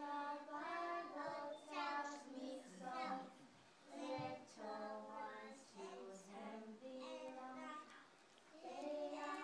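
A small group of young children singing together, in short phrases with brief breaks between them.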